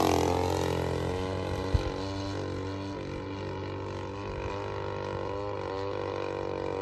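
55cc two-stroke gas engine of a large RC model Focke-Wulf FW-190 running in flight. It fades over the first few seconds as the plane moves away after a pass, then holds a steady drone with slight wavers in pitch. There is one short sharp click near two seconds in.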